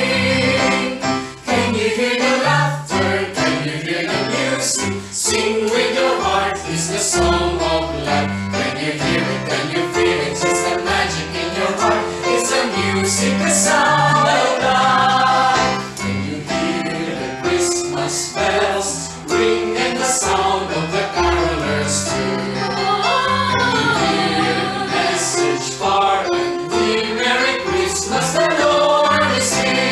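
A choir singing a song in several-part harmony, with sustained chords and moving vocal lines.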